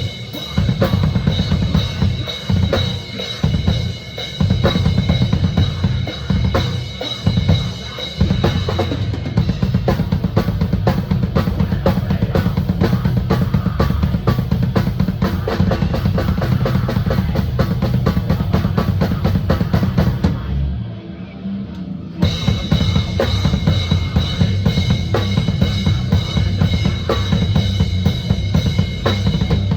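Fast, dense playing on a full drum kit in a deathcore style, with rapid bass-drum strokes under snare and cymbals. About two-thirds of the way through, the cymbals and top end cut out for a second or so while the low end carries on, then the full kit comes back in.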